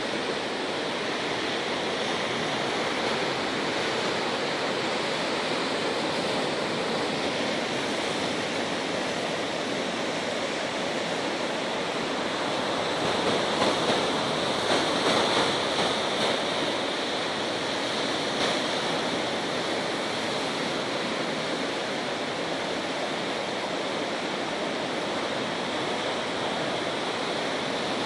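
Sea surf washing steadily toward the shore, with waves breaking a little louder about halfway through.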